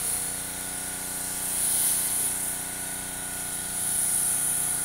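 Pressure washer jet hissing against the house wall, swelling and fading a few times, over a steady machine hum.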